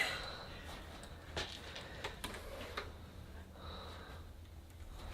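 Faint, scattered clicks and knocks of plastic K'nex pieces being handled and pushed into place, over a low steady room hum.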